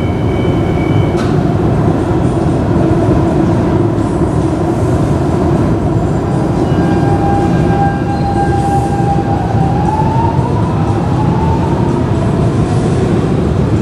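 Lisbon Metro train pulling out of the station and accelerating away, with a steady heavy rumble of wheels and running gear. Partway through, an electric motor whine comes in and rises in pitch as the train picks up speed.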